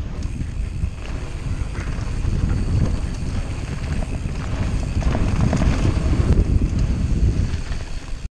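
Wind buffeting the camera microphone over the rumble of a mountain bike's knobby tyres on a dirt trail, with the bike rattling and knocking over bumps during a fast descent. The sound cuts out briefly right at the end.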